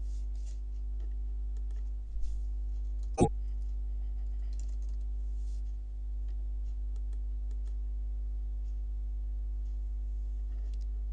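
Scattered computer keyboard typing and mouse clicks over a steady electrical hum, with one sharper click about three seconds in.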